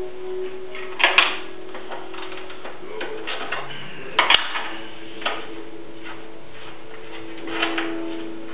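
Hand tools clinking against the steel of a mower deck being taken apart: about four short, sharp metallic clinks, the loudest about four seconds in. Music plays in the background throughout.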